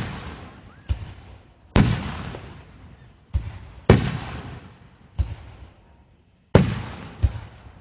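Aerial firework shells bursting overhead: about seven sharp booms at uneven intervals, each followed by an echo that fades over a second or so.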